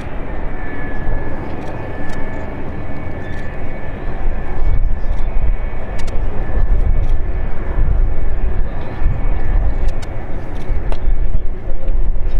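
McDonnell Douglas RF-4E Phantom II's twin J79 turbojets running as the jet rolls along the runway: a loud, steady low rumble with a high whine over it, swelling in the middle.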